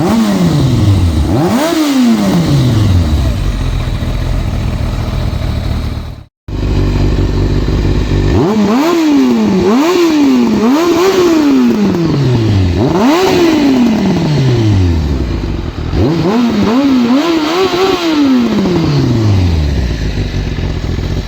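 Kawasaki ZZR1200's inline-four engine revved through a pair of home-made replacement exhausts: a series of sharp throttle blips, each rising quickly and sliding back down toward idle, with a brief drop to silence about six seconds in.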